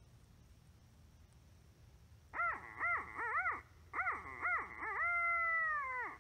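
Owl locator call blown in a barred-owl pattern: two rhythmic runs of rising-and-falling hoots, then one long drawn-out hoot that falls away at the end.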